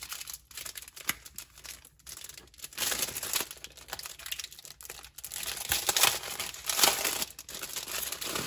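Clear plastic wrap crinkling as it is peeled off a spiral-bound paper planner, in irregular crackles that grow louder from about three seconds in.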